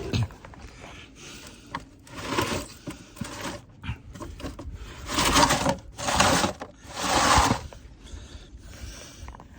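A person crawling into a tight crawl space: scraping, rustling and shuffling of body and clothing against the ground, with several louder rushes of scraping or hard breathing, the loudest three close together in the middle.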